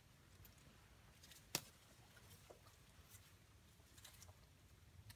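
Near silence with a few faint scattered clicks, and one sharper click about a second and a half in.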